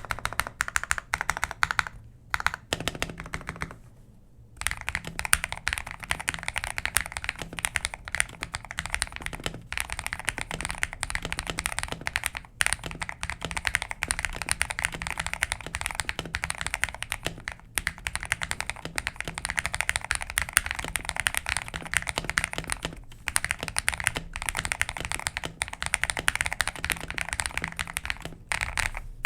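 Fast continuous typing on a Feker IK75 75% mechanical keyboard with KTT Wine Red linear switches: a dense run of key clacks, with a short lull about four seconds in.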